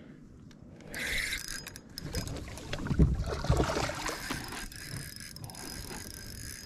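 Water splashing as a large hooked smallmouth bass thrashes beside a plastic fishing kayak, mixed with knocks and creaks of the landing net and gear against the hull; the loudest knocks come about three seconds in.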